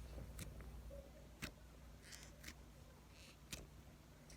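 Near silence with a few faint, short clicks about a second apart: fingers poking into a flattened slime.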